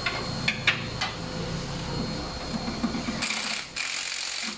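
Socket wrench working a bolt in a car's engine bay: a few sharp metal clicks in the first second, then rapid ratcheting for about a second near the end.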